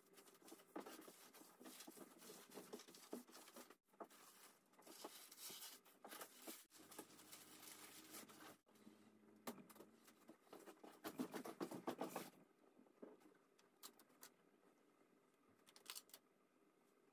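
Faint rustling and crackling from a large sheet of thin bamboo paper being handled and smoothed by hand, with scattered small clicks and taps. It comes in busier stretches, the loudest a little past the middle.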